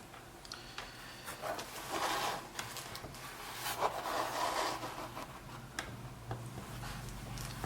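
Soldering iron tip being wiped and scraped clean in a tip cleaner: scratchy rubbing in two main bouts, with small clicks of handling in between. A low hum comes in near the end.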